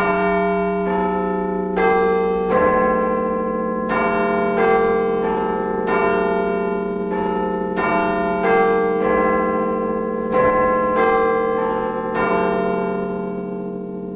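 Bell-like chimes playing a slow melody, one struck note about every second, over a steady held low note; they start suddenly and the last notes ring out and fade near the end.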